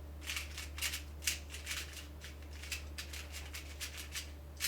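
An X-Man Volt Square-1 puzzle cube being turned by hand: an irregular run of light plastic clicks, several a second, as its layers slice and turn.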